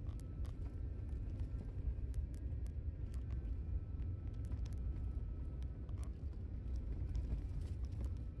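Vehicle driving on a dirt gravel road: a steady low rumble of engine and tyres, with scattered small clicks and rattles of gravel and loose parts.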